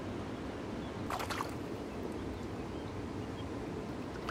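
Steady rushing of a river's flowing water, with a brief crackle about a second in.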